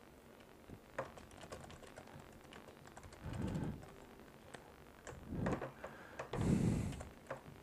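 Typing on a computer keyboard: irregular keystroke clicks, with three louder dull bumps in the second half.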